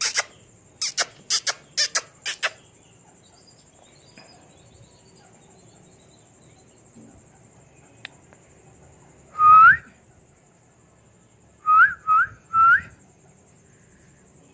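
Parrot giving a run of short, harsh screeches, then after a pause a single rising whistle and, near the end, three quick rising whistles.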